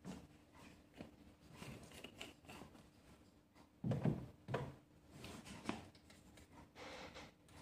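Faint handling sounds of feeding: small clicks and rustles, two soft knocks about four seconds in, then plastic feeding tongs clicking and scraping against a food bowl of chopped vegetables near the end.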